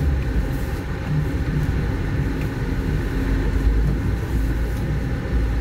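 Car engine running steadily while driving, a continuous low rumble with no sudden changes.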